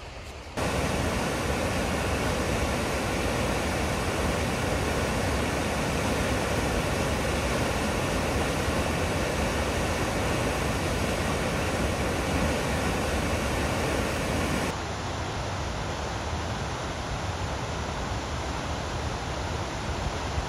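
Waterfall rushing into a rocky gorge: a steady wash of falling-water noise that comes in suddenly about half a second in and drops somewhat quieter from about fifteen seconds in.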